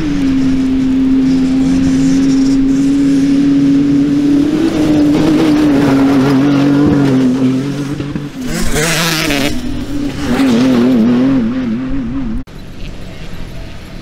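Toyota Tacoma pickup's engine held at high revs at speed on a sandy dirt track, a steady drone. About two-thirds of the way through there is a loud rush of noise as the truck passes. The revs then waver up and down before the sound cuts off suddenly near the end.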